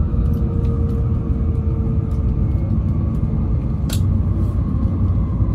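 Steady low rumble of a Tokaido Shinkansen bullet train, heard from inside the passenger car while it runs along the line. A faint hum fades out about halfway, and a single sharp click comes about four seconds in.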